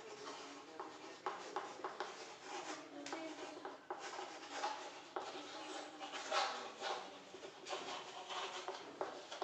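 Chalk tapping and scraping on a chalkboard as words are written by hand: a run of irregular short strokes and taps.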